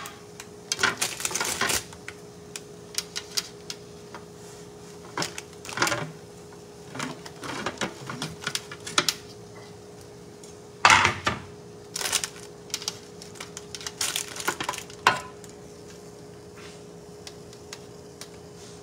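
Dishes and utensils being handled on a kitchen counter: scattered clicks, knocks and short clatters at irregular intervals, the loudest clatter about 11 seconds in, over a steady faint hum.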